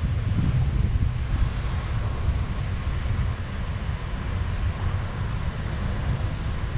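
Steady low rumble of water rushing through a river dam.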